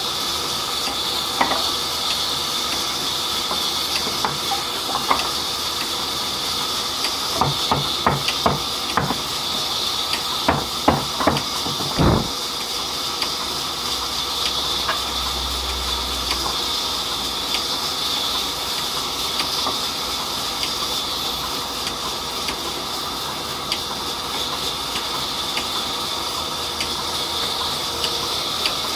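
A band sawmill running with its blade cutting through a mahogany slab: a steady high hiss throughout. A cluster of sharp knocks comes about seven to twelve seconds in, the loudest about twelve seconds in.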